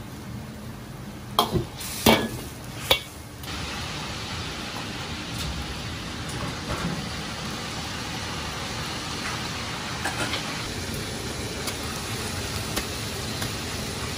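Three sharp metal clanks against a wok in the first three seconds, then a steady hiss of soup boiling hard in the wok.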